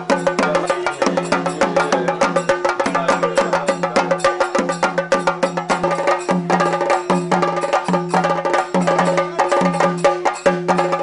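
Traditional percussion music: fast, dense stick drumming over a steady drone, with a low pitched part that slides between notes in a repeating pattern.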